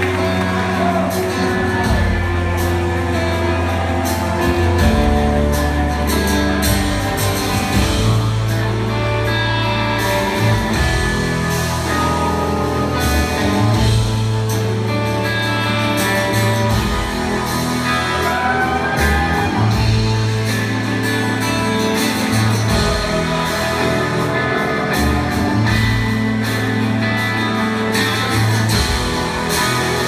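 Live rock band playing from the stage, with singing over guitars and a bass line that moves every couple of seconds, recorded from the audience in a large hall.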